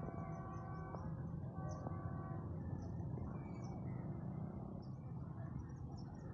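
Distant horn of the approaching Millat Express locomotive: a held chord that stops about a second in, then a second shorter blast near two seconds, over a steady low rumble. Small bird chirps are scattered throughout.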